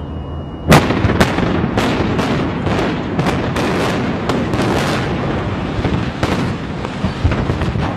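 Explosive demolition charges going off in sequence during the implosion of a brick high-rise apartment tower. A loud sharp bang just under a second in is followed by a rapid string of further bangs, about two a second, over a continuous rumble.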